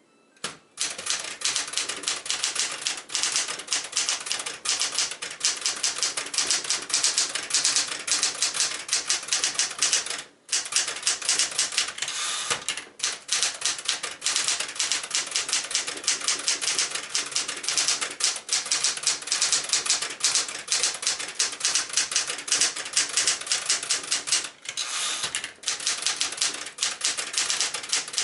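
A 1974 Smith-Corona Galaxie Twelve manual typewriter being typed on steadily: rapid key strikes with short pauses about ten and thirteen seconds in.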